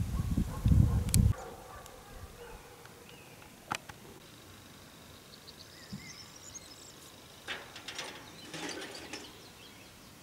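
Wind buffeting the microphone in low gusts for about the first second, then quiet open countryside with faint bird chirps, a thin steady high insect-like tone and a few sharp clicks.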